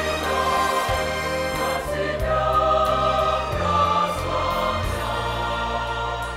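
Mixed church choir singing a Russian hymn in parts, with held notes over a low, sustained accompaniment. Near the end the singing drops away and the accompaniment carries on more quietly.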